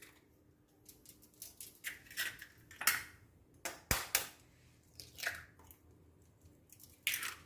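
Raw chicken pieces being mixed in a thick, sticky marinade of egg, cornflour, flour and sauces: irregular wet squelching, with one sharp tap about four seconds in.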